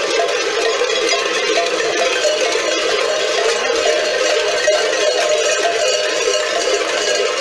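Many large metal bells worn at the waists of a group of Didi maskers, ringing together in a dense, unbroken clangour as the maskers walk in procession.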